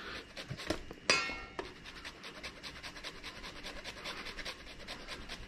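A dog panting rapidly and steadily, with one sharp clink that rings briefly about a second in.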